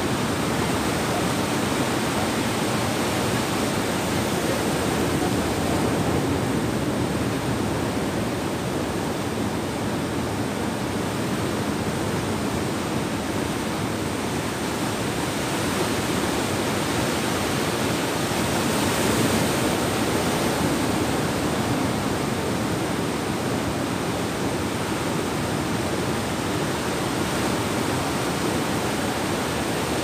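Ocean surf breaking and washing up the shore: a steady rushing wash of noise that swells a little now and then.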